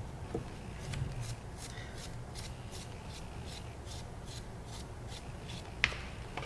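A serrated rib scoring the surface of clay: a run of quick, rhythmic scratching strokes, about two or three a second, with one sharp click near the end.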